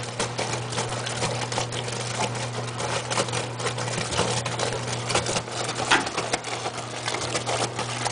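Continental washing machine running its wash cycle with the lid open: the motor hums steadily under the irregular churning and sloshing of the water and clothes.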